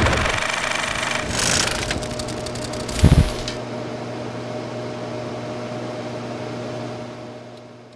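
Logo-reveal sound effects: crackling, clicking film-style noise, a single heavy hit about three seconds in, then a steady humming drone that fades away near the end.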